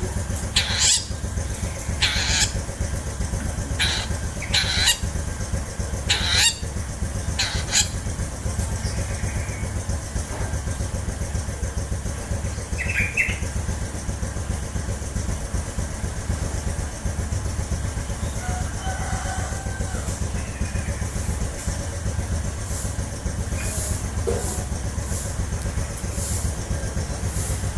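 Long-tailed shrike (cendet) giving short, harsh calls about once a second for the first eight seconds, then only a few scattered calls, over a steady low hum.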